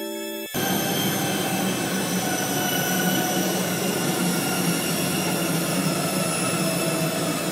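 Dense, steady wall of noise with thin high tones held over it, played loud through a hanging loudspeaker as an experimental electronic piece. It starts abruptly about half a second in, cutting off a sustained pitched chord.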